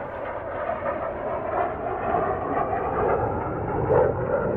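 Two Blue Angels F/A-18 Super Hornet jets flying past overhead: a steady rushing jet noise that swells slightly near the end.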